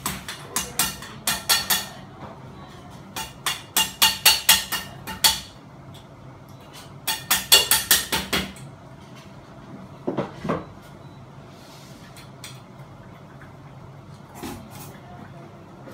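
Hammer blows struck overhead at the ceiling fan's mounting point, in quick runs of about four to five strikes a second with pauses between. In the second half only a few scattered, lighter knocks.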